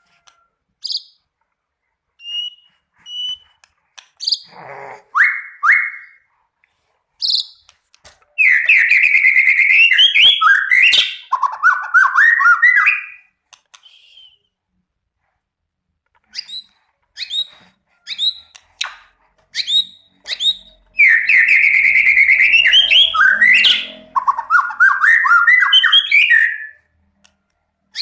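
A songbird singing hard: scattered short chirps and whistles, then two long, loud phrases, each a fast rattling trill that runs into a string of rising notes. The rattling trills are the rasping 'ngorok' that bird keepers prize as a sign of a bird singing at full effort.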